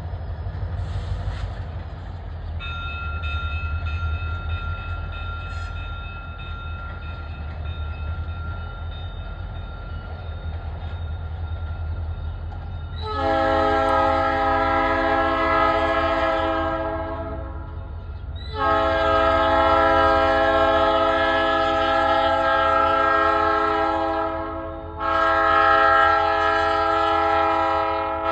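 Diesel freight locomotive, a GP40R, rumbling as it pulls out while its Ekyrail electronic bell rings, then its Nathan AirChime P3 three-chime horn blows two long blasts and starts a third, loud and held.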